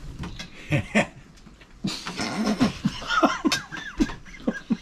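People laughing, high-pitched and squealy, over a botched attempt to fold a tortilla. Two short knocks about a second in come before the laughter.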